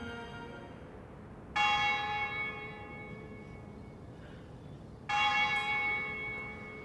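A bell struck twice, about three and a half seconds apart, each stroke ringing on and slowly fading.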